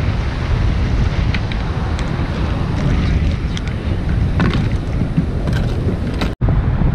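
Wind buffeting the microphone over the wash of surf, with a few light clicks of pipi shells being handled and dropped into a plastic bucket.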